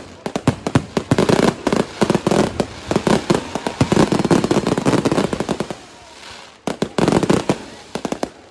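Consumer fireworks going off in a rapid, dense barrage of sharp bangs and cracks for about six seconds. After a brief lull, another burst of bangs comes near the end.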